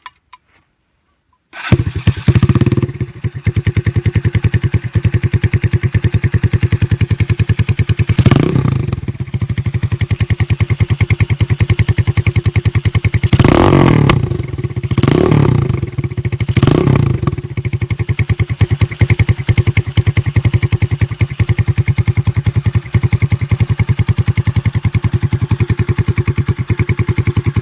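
Cleveland CycleWerks Heist 250's single-cylinder engine running through its stock muffler cut down to a straight pipe with no silencer. It starts up about a second and a half in and idles with a fast, even, loud exhaust beat. It is revved once, then three more times in quick succession, dropping back to idle after each.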